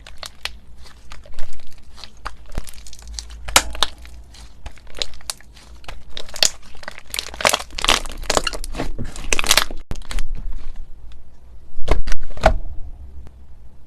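Irregular crinkling and crackling of something handled by hand, densest around the middle and thinning out afterwards, with two sharper knocks near the end.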